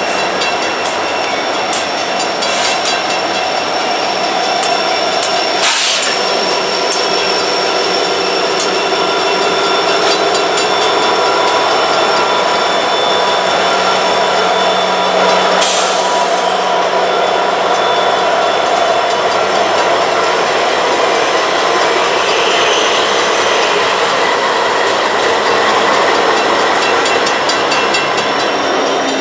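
A lashup of GE diesel freight locomotives (a B40-8W, a C40-8 and an ES44AC GEVO) rolling past close by: engines running with a steady whine and wheels clacking over the rails, with two sharp clanks about six and sixteen seconds in.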